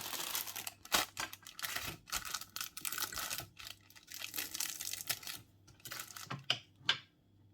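Plastic model-kit sprues being handled: a plastic bag crinkling and parts clicking together, dense for the first few seconds, then a few scattered clicks.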